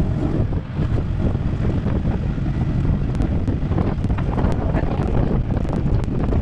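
Heavy wind rumble on the microphone from riding in an open buggy, over the buggy running along a wet tarmac road.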